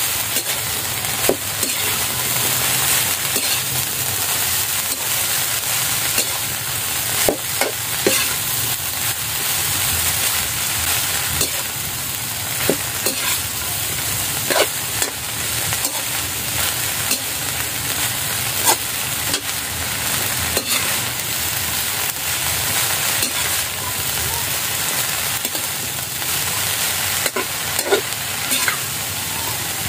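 Fiddlehead ferns and dried shrimp sizzling in a wok as a spatula stirs and tosses them in a stir-fry, with a steady hiss and irregular clacks and scrapes of the spatula against the pan.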